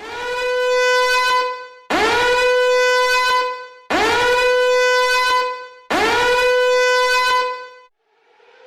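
An alarm horn sounds four long blasts, one every two seconds. Each swoops quickly up in pitch into a steady, held note, then fades away.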